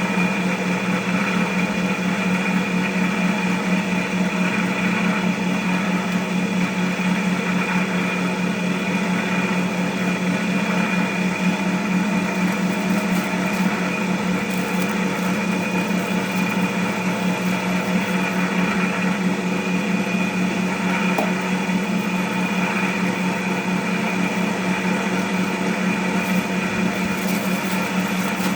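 Electric motor of a large cast cotton candy machine running at a steady speed, spinning its head with an even hum.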